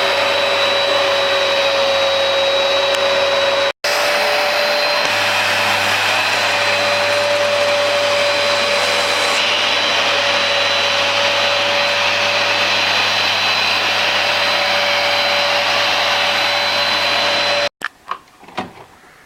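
Hoover Power Dash carpet cleaner's motor running steadily with a constant whine. It cuts out for an instant a few seconds in and stops abruptly near the end.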